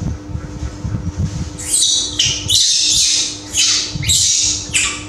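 A baby macaque screaming: a run of about six shrill, piercing cries in quick succession, starting about a second and a half in, the distress crying of a frightened infant monkey.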